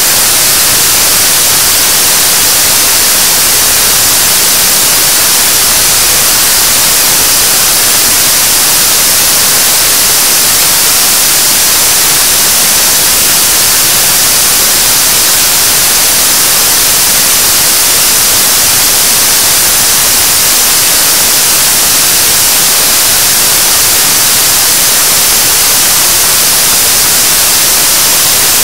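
7-tonne-class liquid rocket engine for the Nuri launch vehicle's third stage firing at steady thrust on a hot-fire test stand: a loud, unchanging rushing hiss.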